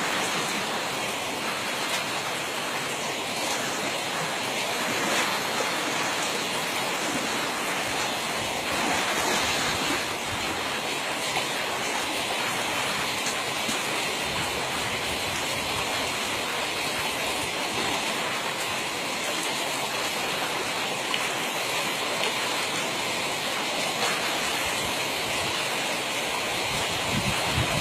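Steady rushing noise, even throughout, with no distinct events standing out.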